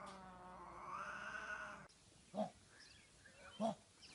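Black-and-white cat giving a long, drawn-out yowl that rises and falls in pitch and cuts off about two seconds in. Two short, separate calls follow later.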